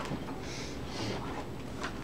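Classroom background noise: a steady low hum with a few small clicks and soft rustles.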